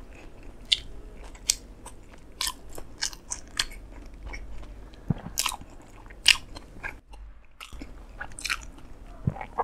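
Close-miked chewing and crunching of a mouthful of toasted bread and filling, with irregular crisp crackles.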